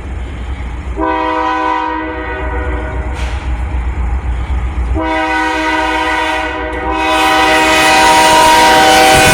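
Union Pacific freight locomotive's air horn sounding two long blasts, the first about a second in and the second from about five seconds in, over the low rumble of the diesel. The sound grows louder near the end as the train comes by.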